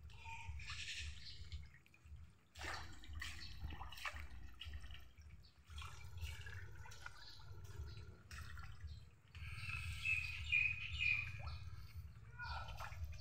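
A crowd of fish splashing and breaking the surface of a pond, water dripping and slapping in uneven bursts over a steady low rumble.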